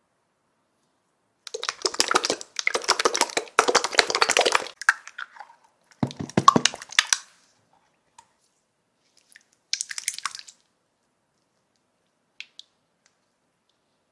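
Clear green jelly slime squished and pulled by hand, wet squelching and crackling in three bursts: a long one, a shorter one, and a brief one about ten seconds in.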